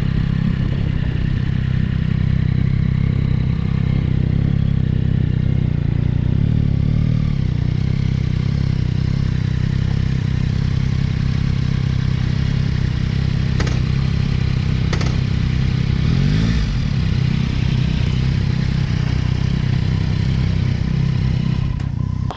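Yamaha Tracer 9 GT's three-cylinder engine running as the motorcycle slows to a stop and idles steadily, with a short rise in engine note about two-thirds of the way in. The sound cuts off suddenly at the very end.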